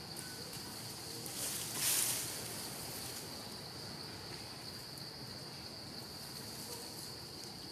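Forest ambience of insects chirring on one steady high note, with a brief loud rush of noise about two seconds in.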